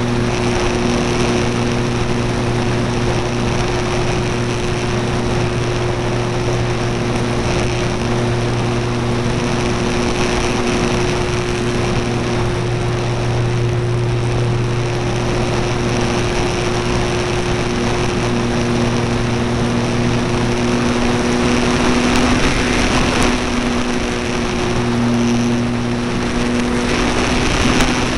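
Electric motor and propeller of an E-flite Apprentice RC trainer plane in flight, a steady buzzing hum heard from a camera on the airframe under a loud rush of air over the microphone. Roughly three quarters of the way through, the low hum fades for a few seconds while the rush of air grows, then comes back.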